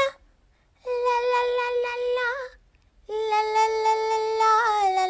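A high voice singing long held notes: one note of about a second and a half, a short break, then a lower note held for about two seconds with a brief wobble in pitch near the end.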